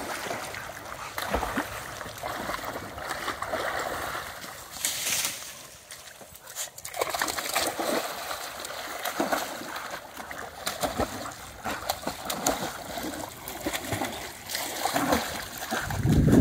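Dogs swimming and thrashing in a water-filled galvanized stock tank, with continuous splashing and sloshing water.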